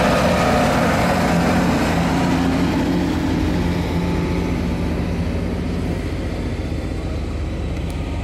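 Heavy military vehicles' diesel engines running. A truck that has just passed close fades away over the first few seconds, while a six-wheeled armoured vehicle drawing nearer gives a steady low engine rumble.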